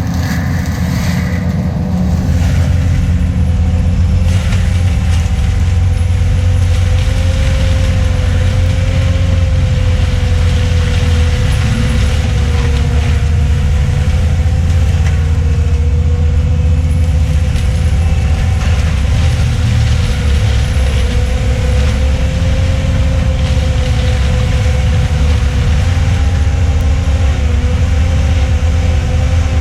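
ASV RT-120F compact track loader running a Fecon Bullhog forestry mulcher at steady high revs. It makes a loud, continuous low drone with a steady, slightly wavering whine above it.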